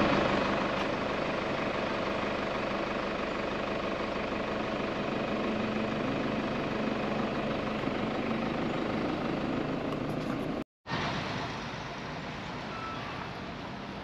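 A motor vehicle's engine running steadily close by. It cuts out briefly about eleven seconds in, then carries on quieter.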